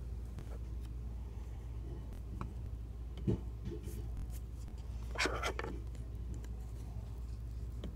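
Lemons and a kitchen knife handled on a hard surface: a few light knocks and clicks, with a scratchy rustle about five seconds in, over a low steady hum.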